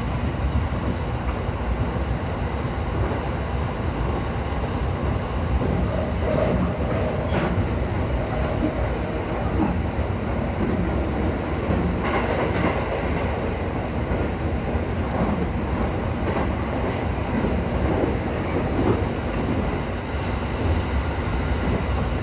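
Electric commuter train running, heard from inside the passenger car: a steady low rumble of the moving train, with a few faint knocks scattered through it.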